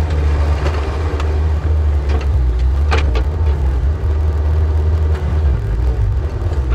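Yanmar ViO50 mini excavator's diesel engine running steadily under digging load, with a few short scraping clicks as the bucket works the soil. The low engine note eases about five and a half seconds in.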